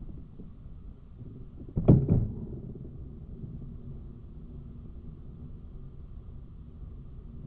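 A baitcasting rod with an Abu Garcia Ambassadeur 1500C reel being cast: a sudden loud double thump about two seconds in, trailing off into a short fading hum. A steady low rumble runs underneath.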